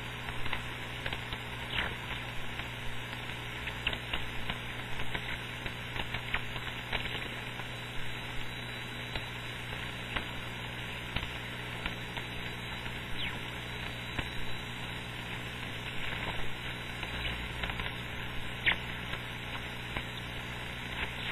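Static from an HF radio receiver tuned to 27.555 MHz on the 11-metre band with no station coming through: a steady hiss of band noise with scattered crackles and a low steady hum underneath.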